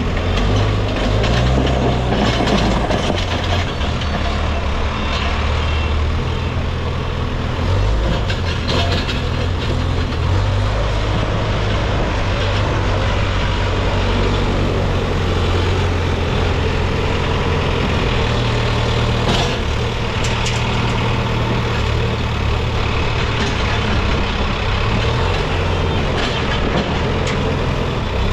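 Case backhoe loader's diesel engine running, its speed rising and falling several times as the machine works, with a few short clanks.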